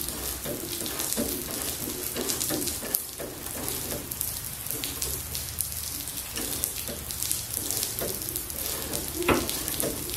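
Steady hiss of rain falling, with scattered faint clicks from a ratchet wrench tightening an engine-mount bolt.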